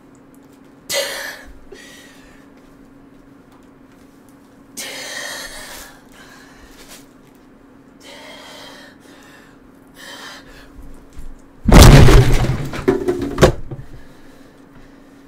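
A person's sharp breaths and gasps, a few seconds apart, over a faint steady hum. Near the end comes a loud jumble of thumps and knocks lasting about two seconds, as the person scrambles up off the floor.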